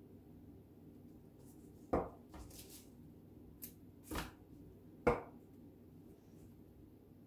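Craft supplies being handled on a tabletop: a few short knocks and taps, the loudest about two, four and five seconds in.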